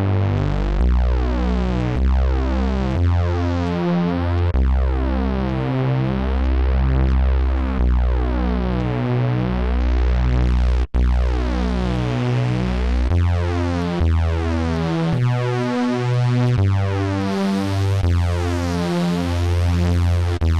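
Ableton Operator supersaw lead: three slightly detuned sawtooth oscillators with some noise, through a low-pass filter and a soft shaper. It plays a steady sequence of synth notes over a strong bass, the notes changing about twice a second, with a very brief cut about 11 seconds in.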